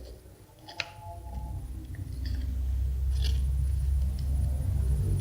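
Low rumbling handling noise on the microphone as the phone or toy is moved, with one light click about a second in.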